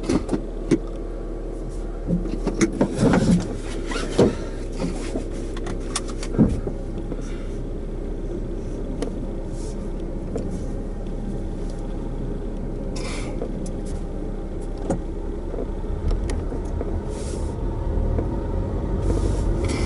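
2005 Honda Civic driving, heard from inside the cabin: steady road and engine noise with a few knocks and rattles in the first seconds, and a low rumble that grows near the end. There is no growl from the freshly replaced front wheel bearing.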